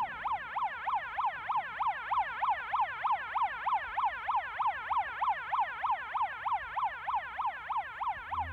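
Police siren in fast yelp mode, its pitch sweeping up and down about three times a second.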